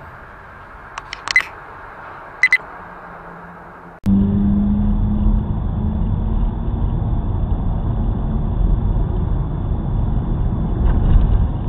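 Road and engine noise from a moving car, picked up by its dashcam while driving in highway traffic, with a few short high beeps about a second in and two more at about two and a half seconds. About four seconds in it cuts to louder, steady road noise with a low hum.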